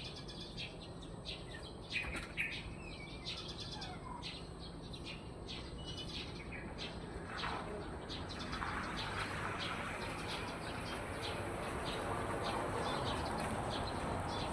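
Small birds chirping: many short, high calls in quick succession, with a steady hiss building up about halfway through.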